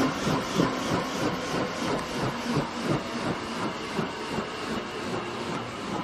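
Robinson R44 helicopter's two-blade main rotor turning slowly, with an even beat about four to five times a second over a steady hiss; the beat grows fainter toward the end.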